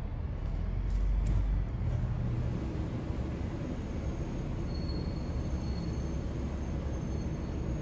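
Steady low rumble of outdoor background noise, swelling briefly about a second in, with faint thin high tones later.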